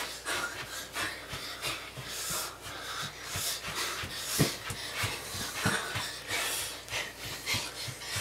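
A boy panting hard while running in place, his feet thudding on the floor about two to three times a second, with one heavier thump about halfway through.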